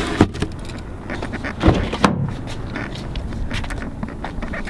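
A pickup truck door being handled: a sharp knock just after the start, two more clunks a little under two seconds in, and light clicks and rattles between.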